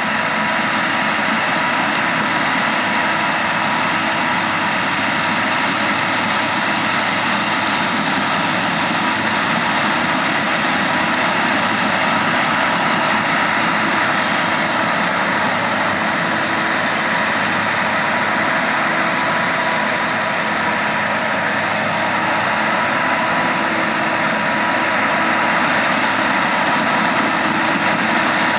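Massey Ferguson 9895 combine running steadily while harvesting corn: a constant machine noise with a thin steady whine.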